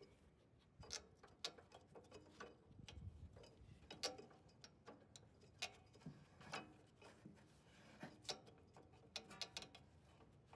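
Faint, scattered clicks and light taps of a snowblower's rubber V-belt and metal pulleys being handled with a gloved hand as the attachment drive belt is worked off the engine sheave.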